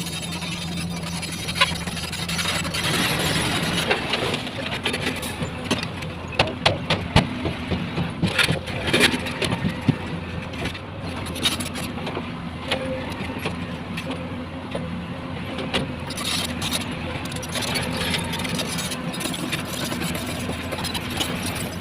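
Heavy construction machinery running with a steady engine drone, broken by a run of sharp clanks and knocks through the middle stretch.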